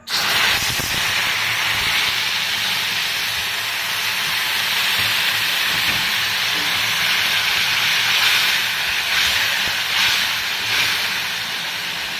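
Wet spice paste of ground green chilli, ginger and tomato poured into hot oil in a kadai, sizzling loudly the instant it lands and going on sizzling steadily as it is stirred, easing a little near the end.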